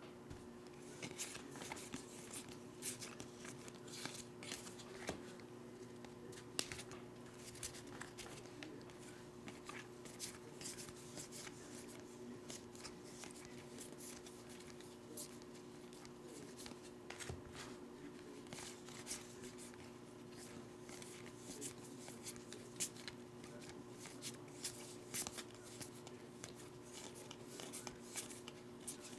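2020 Bowman baseball cards being slid and flicked one after another through the hands, a string of light, irregular clicks and rustles over a steady low hum.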